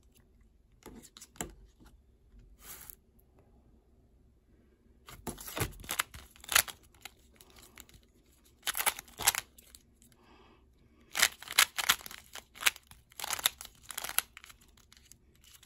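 Gan Pyraminx being turned fast in a speedsolve: bursts of quick plastic clacking turns from about five seconds in, after a few scattered clicks. It ends with a sharp hit as the solve stops.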